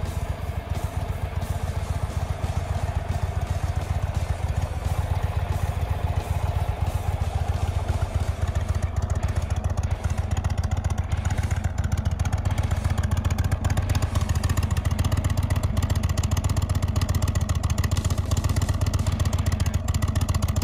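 Indian Thunder Stroke 116 air-cooled V-twin of a 2020 Chieftain Dark Horse idling steadily, a low, even run of firing pulses through its dual exhaust, a little louder in the second half.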